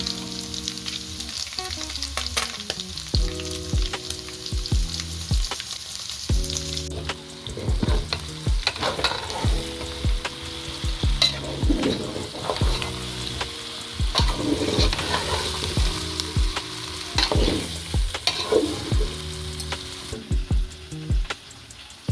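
Food sizzling as it fries in a pan while a spoon stirs it, with knocks and scrapes of the utensil against the pan. The hiss of the sizzle changes about seven seconds in. Background music with a low, regular beat plays underneath.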